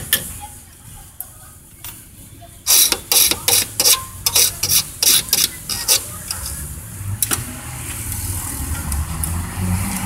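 Hand file rasping on a tubular lock key clamped in a bench vise: about ten quick strokes over some three seconds, cutting a shallow notch for the last pin. A low steady rumble builds underneath in the second half.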